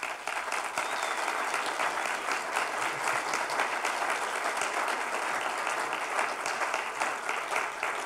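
Audience applauding: many people clapping together at a steady, even level.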